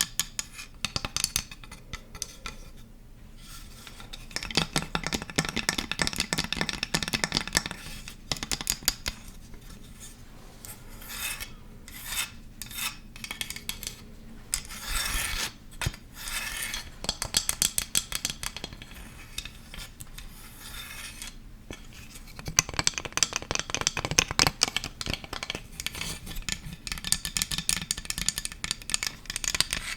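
Close-miked ASMR trigger sounds: fast, dense clicking and rubbing in bursts, with short pauses between them.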